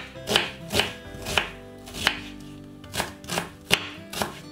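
Kitchen knife dicing an onion on a wooden cutting board: about eight sharp chops, unevenly spaced.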